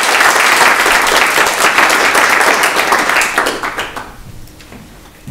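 Audience applauding, a dense patter of many hands clapping that fades away about four seconds in.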